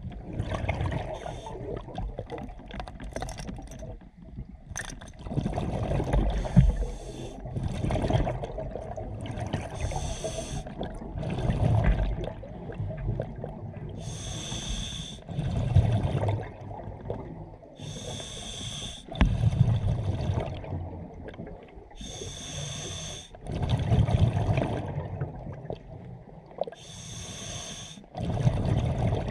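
Scuba diver breathing through a regulator underwater: a hissing inhale, then a rumbling burst of exhaled bubbles, repeating about every four seconds.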